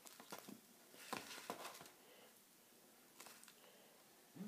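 Faint, short sticky squishes and clicks of frosting-and-powdered-sugar slime being worked in the hands and scraped with a spatula, in near silence. They come in small clusters at the start, about a second in, and again about three seconds in.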